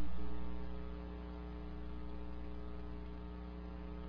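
Steady electrical mains hum in the recording, a low, even hum with a row of overtones and no other sound.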